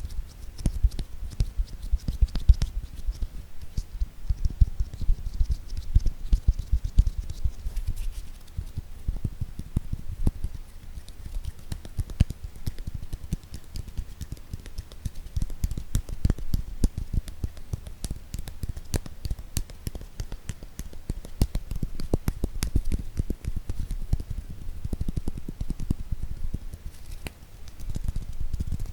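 Fingers tapping rapidly and irregularly on objects for ASMR: dense light clicks over low, hollow thumps, with no pause.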